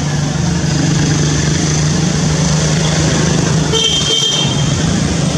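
Motor vehicle engine running steadily nearby, a constant low hum over traffic noise, with a brief high horn toot about four seconds in.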